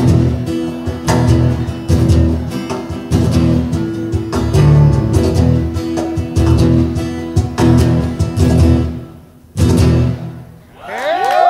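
Acoustic guitars strummed over cajon beats in the last bars of an acoustic rock song. The playing stops with a final strike that rings out, and cheers and whistles from the audience start just before the end.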